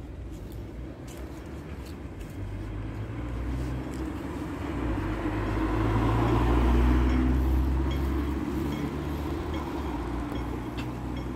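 A motor vehicle passing on the road: its low engine rumble and tyre noise build to a peak about six to seven seconds in, then fade away.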